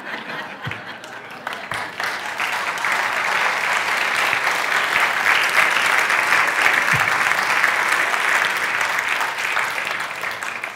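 Audience applauding, the clapping building over the first couple of seconds, holding steady, then thinning out near the end.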